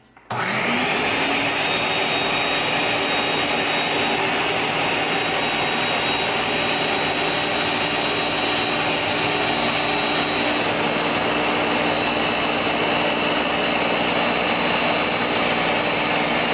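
Countertop blender switched on about a third of a second in, its motor spinning up within a second and then running steadily and loudly. It is blending a full jug of coconut water, coconut milk and grated coconut.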